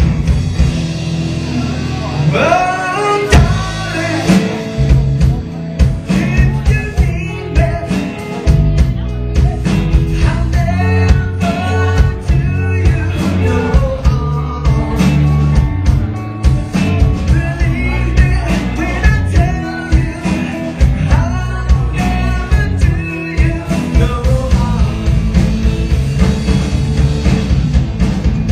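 Live band playing a rock number, with a singer's voice coming and going over guitar and drums with a steady beat.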